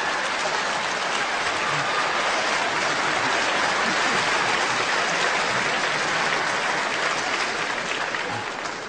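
Large audience applauding, the clapping dying down near the end.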